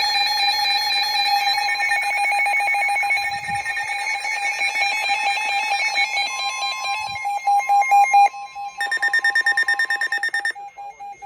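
Several NOAA weather radios sounding their alert alarms at once for a Special Marine Warning: overlapping electronic beeping and a pulsing alarm tone, joined by a steady single warning tone from about six to ten seconds in. Most of the alarms stop about ten and a half seconds in, leaving one pulsing beep.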